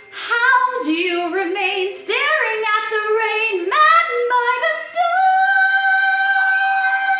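A woman singing a musical-theatre solo, moving through several notes and then holding one long final note for about two seconds.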